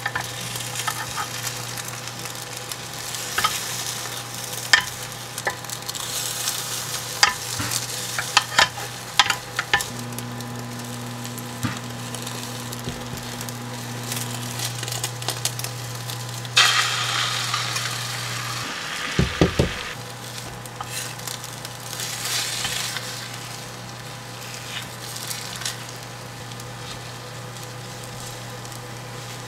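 Beaten egg sizzling in a square nonstick egg-roll pan while two spatulas fold and roll it, with scattered clicks and taps of the spatulas against the pan. The sizzle swells louder for about two seconds a little past the middle.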